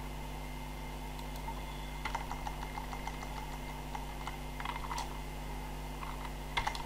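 Computer keyboard typing in short clusters of keystrokes, sparse at first and quicker near the end, while text in a line of code is deleted and retyped. A steady low hum runs underneath.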